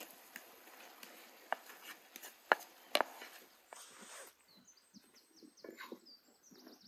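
A few sharp knocks of cooking work, the two loudest about half a second apart near the middle, with small birds giving a quick run of short high chirps near the end.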